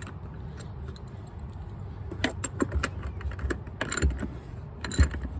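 Hand ratchet with a 10mm socket clicking in short strokes as bracket screws are snugged down, starting about two seconds in, with a couple of louder clicks near the end.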